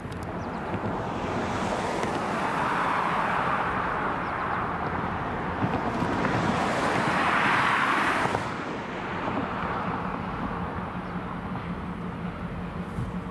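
Diesel locomotive running as it approaches from a distance, a steady low engine hum, with a broad rushing noise swelling twice over it, the second swell cutting off suddenly.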